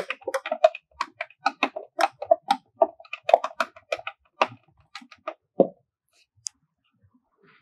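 A long screwdriver stirring white DTF ink inside a plastic bottle, its shaft clicking and knocking against the bottle in quick, uneven strokes. The knocking stops about three-quarters of the way through. The stirring mixes settled white ink until it is even.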